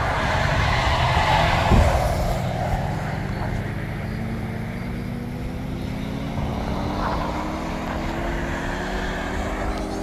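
Road traffic noise: a vehicle passes loudly in the first two seconds, then an engine hum climbs slowly and steadily in pitch.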